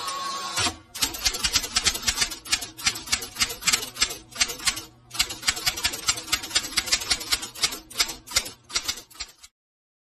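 Typing keys clacking in a quick, irregular run, with a short pause about halfway. The run opens with a brief rushing burst and cuts off abruptly near the end. It plays as a typing sound effect over title text.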